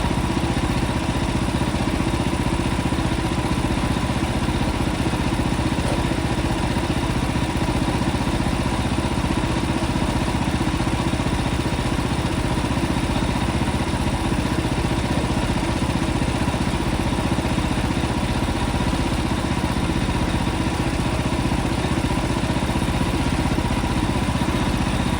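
Portable bandsaw mill's engine running steadily while the mill slabs a pine cant, with a faint steady whine over the engine's drone.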